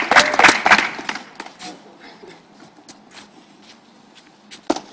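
A small crowd applauding, the claps thinning out and dying away after about two seconds, followed by a few sharp taps near the end.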